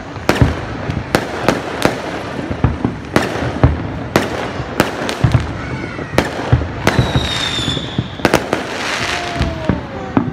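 Fireworks going off in a rapid, irregular string of sharp bangs, some much louder than others, over a continuous crackle. A brief high whistle sounds about seven seconds in.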